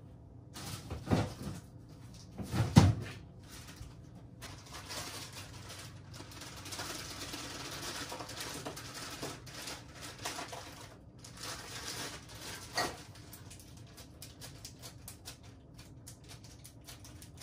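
Kitchen handling noises: two thumps in the first three seconds, the second the loudest, as the refrigerator door is shut, then several seconds of crinkling plastic snack packaging, with a sharp knock about thirteen seconds in.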